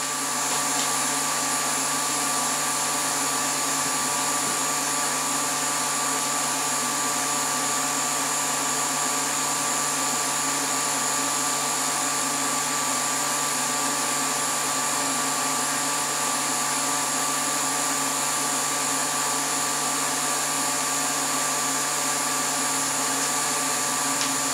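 Vacuum pump running steadily, a constant hum with several fixed whining tones, holding vacuum on the bagged layup while resin is drawn in during vacuum infusion.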